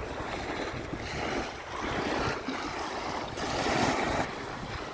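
Small Baltic Sea waves washing in over a sandy shore, the wash swelling twice, about two seconds in and again around four seconds, with wind rumbling on the microphone.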